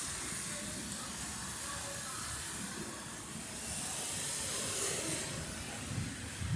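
Heavy rain falling, a steady hiss that swells a little about two-thirds of the way in.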